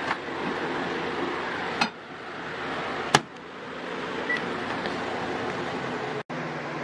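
Hamilton Beach microwave oven: the door clunks twice as it is opened and latched shut, a keypad beep sounds about four seconds in, and near the end the oven starts running with a steady low hum, over a steady background hiss.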